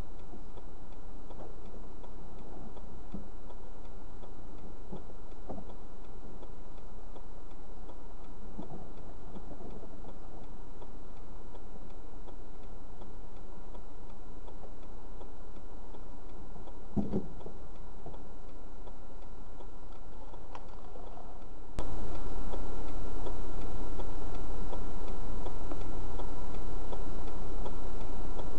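A car's indicator flasher ticking at a steady, regular rate inside the stopped car, over a constant low hum, with a single knock about seventeen seconds in.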